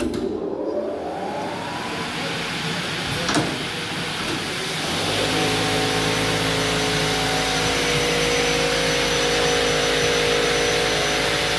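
Mecal-Wegoma SW 452 double-mitre saw's electric blade motors starting up: a whine rising in pitch over the first couple of seconds, a click a little after three seconds, then about five seconds in a second motor cuts in with a low hum. Both then run steadily at speed without cutting.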